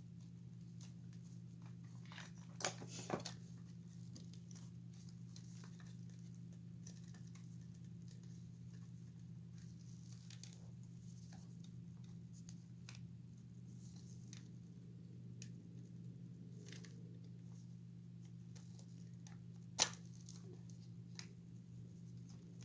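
Scattered small clicks and taps of an animatronic figure's parts being handled as its arms are fitted onto the upper body, with a couple of sharper clacks about three seconds in and one louder clack near the end. A steady low hum runs underneath.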